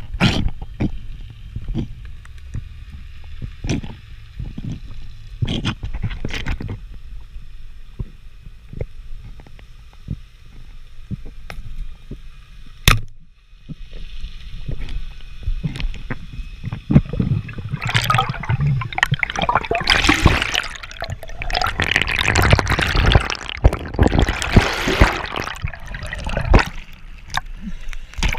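Underwater sound from a speargun-mounted camera: a low water rumble with scattered clicks and knocks, and a single sharp crack about 13 seconds in, when the spear is fired into a fish. From about 17 seconds in, loud bubbling, sloshing and splashing as the diver swims the speared fish up and breaks the surface.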